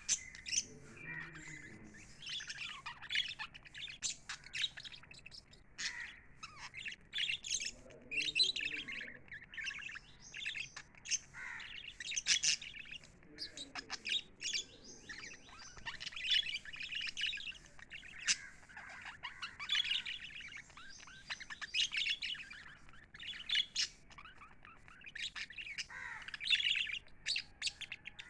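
Several small pet parrots chirping and chattering without pause, in quick high chirps with louder calls every few seconds.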